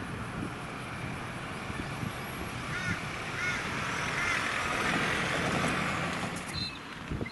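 Wind buffeting the microphone over a steady outdoor hiss, with a bird calling a few short notes about three seconds in and high chirps starting near the end.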